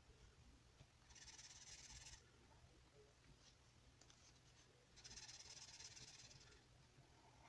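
Faint scratching of a felt-tip marker nib stroked back and forth on paper, in two spells of a second or so each, a few seconds apart.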